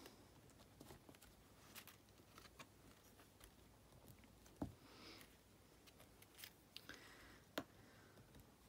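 Near silence with faint, scattered light taps and clicks as sequins are picked off their sheet with a pick tool and pressed onto a paper card, the two sharpest taps about halfway through and near the end.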